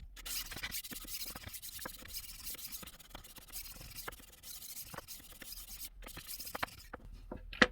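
HORL 2 roller knife sharpener rolled back and forth along a kitchen knife's edge, its grinding disc scraping the steel with a steady hiss. The hiss breaks off briefly about six seconds in, stops shortly after, and is followed by a sharp click near the end.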